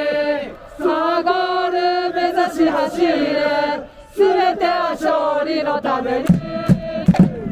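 Football supporters chanting: many voices singing long held notes together in unison, phrase after phrase. Near the end a steady beat of thuds joins in under the singing.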